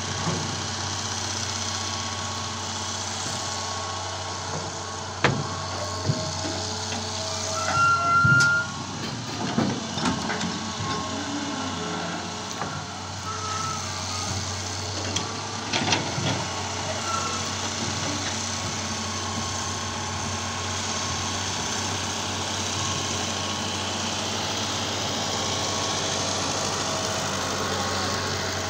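Diesel engines of a Hitachi hydraulic excavator and a farm tractor running steadily, with several knocks and clanks, the loudest about eight seconds in, as the excavator digs sand and loads it into the tractor's trailer. A few brief high squeaks come in among them.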